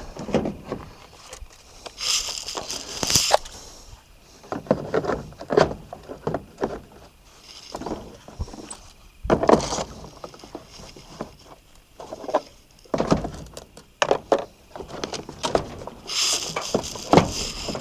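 Irregular wooden knocks and clatter with bursts of rustling, from firewood and kindling being handled and stacked.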